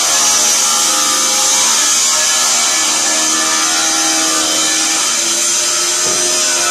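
A power tool running steadily off-camera: a strong high hiss over a hum whose pitch shifts a little about halfway through.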